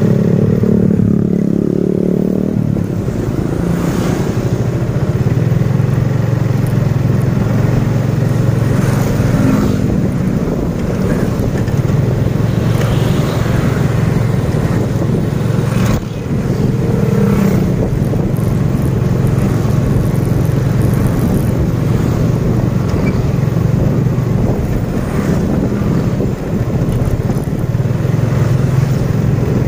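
Motorcycle engine running steadily while riding, with road noise and a few short knocks; the engine note shifts briefly near the start.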